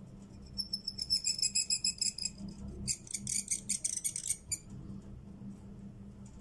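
Reed pen (qalam) squeaking and scratching across paper in two strokes. The first starts about half a second in and is a high, rapidly pulsing squeak lasting about two seconds. The second is a harsher scratch of about a second and a half.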